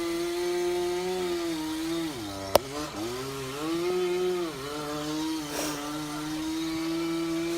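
Two-stroke chainsaw running at high revs, its note steady but dipping in pitch twice and picking back up. A single sharp click sounds about two and a half seconds in.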